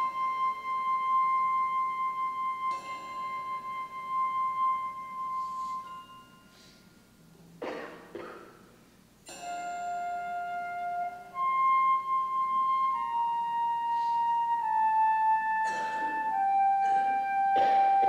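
Wind ensemble playing a slow, lyrical passage live: a high held note, a hush about six seconds in, then a melody of long notes stepping downward. A few soft rushing swells come in near the middle and again near the end.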